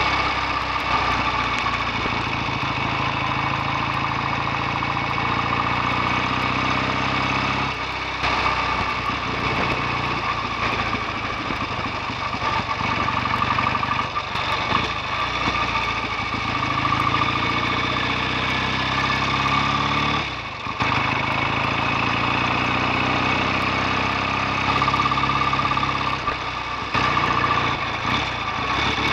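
BSA A65 650 parallel-twin motorcycle engine running continuously. Its note shifts and briefly drops several times.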